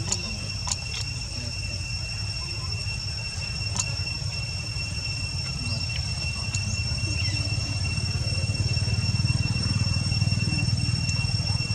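Insects singing in one unbroken, steady high drone over a low outdoor rumble that swells in the second half, with a few faint clicks.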